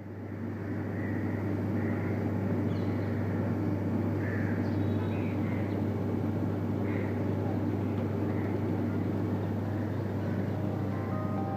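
Steady background ambience: a low hum under an even wash of noise, with short high chirps every second or so. Faint steady musical tones come in near the end.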